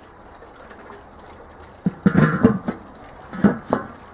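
Metal kettle barbecue lid being put back on the grill bowl: a run of clanks and knocks about two seconds in, then a few more around three and a half seconds as it settles.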